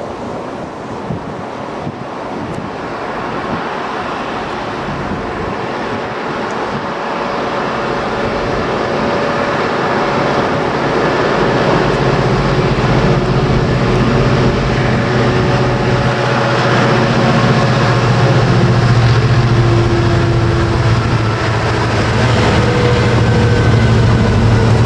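Class 66 diesel-electric freight locomotive approaching and passing at the head of a loaded wagon train, its EMD two-stroke V12 diesel engine a steady drone. The sound grows louder throughout and is loudest from about halfway in as the locomotive draws level.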